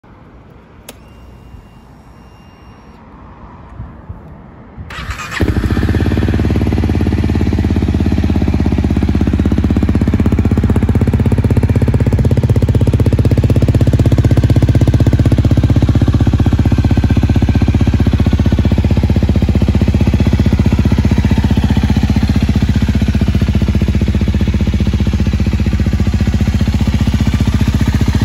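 A 2021 Honda Rebel 250's single-cylinder engine with an Over Racing aftermarket muffler, started about five seconds in after a few faint clicks and a brief faint whine. It settles straight into a steady, loud idle.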